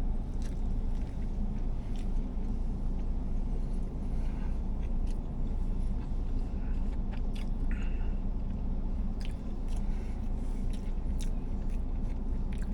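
A person chewing a bite of cheeseburger, with scattered short mouth clicks, over a steady low hum.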